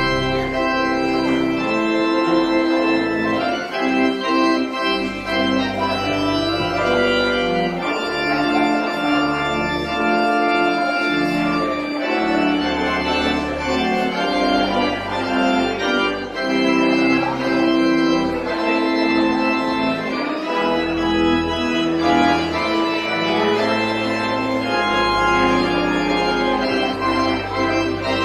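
Pipe organ playing sustained chords that change every second or so, with deep pedal bass notes held underneath.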